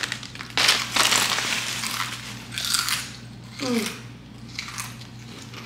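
Biting into and chewing a crunchy ridged hot potato chip: a few sharp crunches about a second apart, with the chip bag crinkling.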